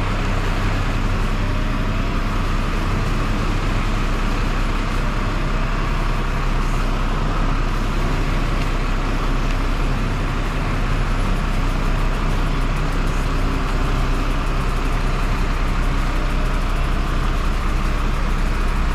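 Crane truck's diesel engine running steadily to power its hydraulic crane, a constant low engine hum.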